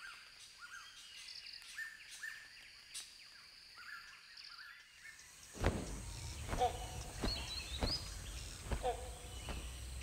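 Small birds chirping faintly in short, repeated high notes. About five and a half seconds in, this gives way to a low outdoor rumble broken by a few sharp knocks and short calls.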